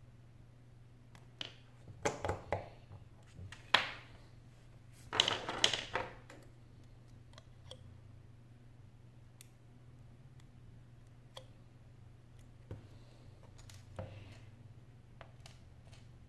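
Small tools and metal parts of an iPhone 6 being disassembled clicking and clattering: a precision screwdriver, tiny screws and brackets handled on a work mat. There is a cluster of clattery clicks in the first few seconds, then only a few scattered ticks, over a faint steady low hum.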